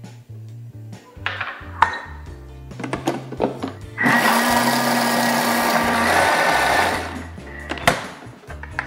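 Countertop food processor with a steel jug blending a thick red-pepper and walnut paste for about three seconds, mixing in oat flakes. It starts about four seconds in as a loud whirr over a steady motor hum, then stops. A few light knocks come first as the lid and measuring cup are set in place.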